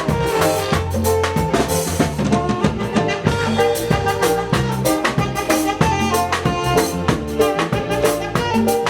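A live band playing an up-tempo instrumental number at a sound check, with a drum kit keeping a steady beat under bass and brass.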